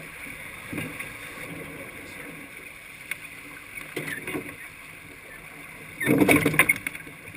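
Water rushing and splashing along the hull of a racing sailboat under way, with a few light knocks of deck gear. About six seconds in comes a loud clattering burst lasting under a second.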